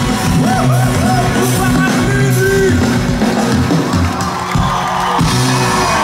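Live rock band playing loud through a festival PA, heavy bass and guitar with vocals, while crowd members shout and whoop over the music.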